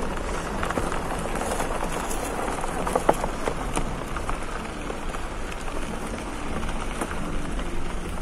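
Wind buffeting a phone microphone outdoors: a steady rushing noise with a low rumble and scattered crackles and clicks, one sharper click about three seconds in.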